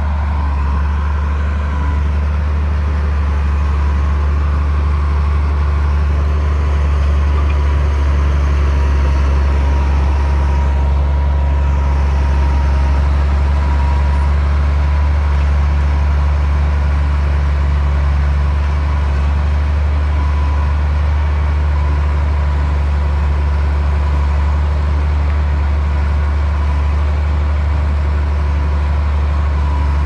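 Komatsu D60P bulldozer's diesel engine running steadily with a deep hum and a thin steady whine above it.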